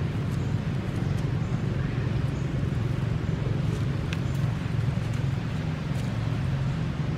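Steady low rumble of background noise with a few faint ticks.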